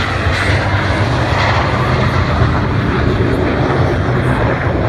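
Twin jet engines of Blue Angels F/A-18 Hornets flying overhead: a steady, loud jet noise with a deep rumble underneath.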